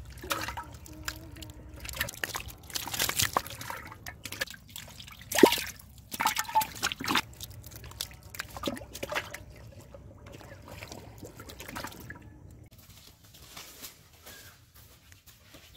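Live catfish flopping and writhing on wet mud: irregular wet slaps, squelches and drips, the loudest slap about five seconds in, growing sparse near the end.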